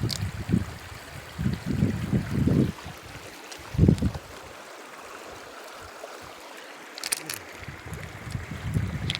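River water rushing steadily, with a few low bumps about two seconds in, near four seconds and near the end, and a brief crackle about seven seconds in.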